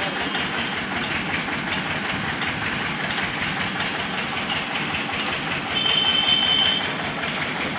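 A steady engine running, with a short high-pitched tone about six seconds in.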